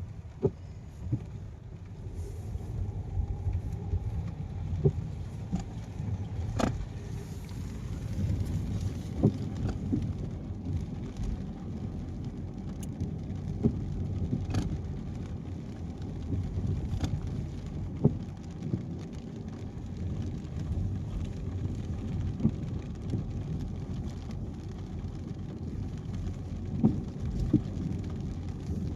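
Car driving on a wet highway in the rain: a steady low road and tyre rumble, with sharp taps at irregular moments.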